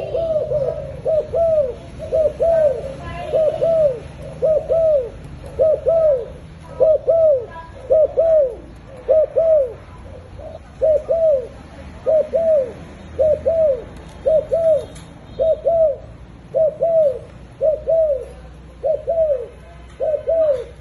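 A young dove cooing over and over: short arched coos in pairs, about one pair a second, steady and unbroken.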